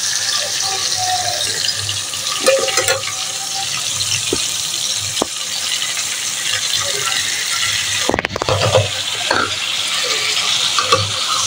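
Chicken cooking in a steel karahi with a steady sizzling hiss, and a metal slotted spoon clinking and scraping against the pan, the busiest clatter about eight seconds in.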